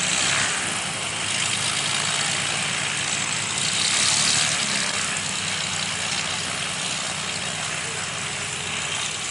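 Piston engines of several single-engine aerobatic propeller planes idling as they taxi, a steady propeller drone that swells briefly about four seconds in.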